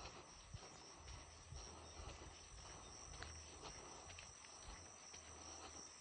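Faint footsteps on a dirt road, soft irregular thuds about two a second, with a steady high insect trill behind them.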